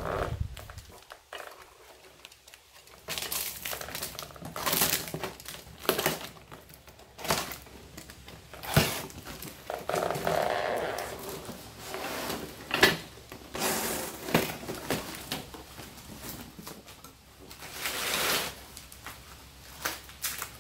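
Cardboard shipping box and its packing being handled and opened: irregular bursts of rustling and crinkling, with a couple of sharp knocks.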